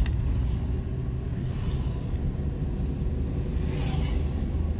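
Vehicle driving along a road: a steady low rumble of engine and road noise, with a brief rushing hiss about four seconds in.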